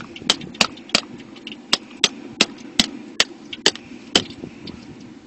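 Sharp, regular knocks, about two or three a second, stopping about four seconds in: a knife being struck through the hard bony shell of a boxfish to split it open.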